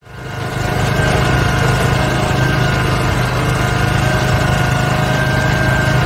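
Engine of a heavy construction machine running steadily, fading in over the first second.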